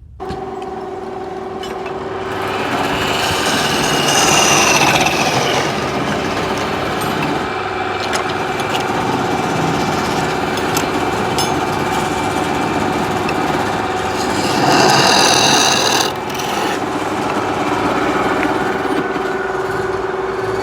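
Wood lathe running with a steady motor hum while a turning tool scrapes the spinning wood, a rough rasping that sets in abruptly. It swells louder twice, about four seconds in and again around fifteen seconds.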